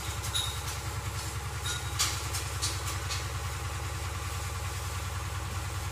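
A steady low motor hum with a fast, even pulsing, and a few light clicks in the first couple of seconds.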